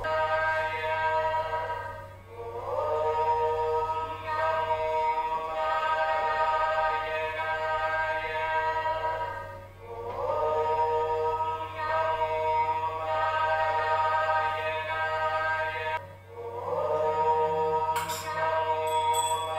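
Background devotional song: voices holding long sung notes, a new phrase swelling in about every seven seconds.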